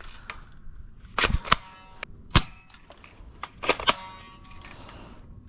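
Cheap spring-powered airsoft sniper rifle being fired and cocked: several sharp clacks spread out over a few seconds, two of them followed by a short metallic ringing of the spring.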